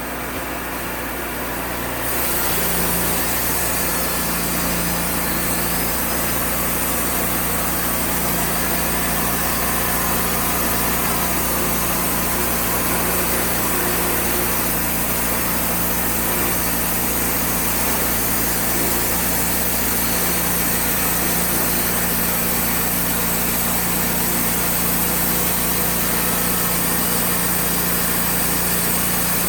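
Engine of a Wood-Mizer portable band sawmill running steadily. It grows louder and fuller about two seconds in, then holds steady.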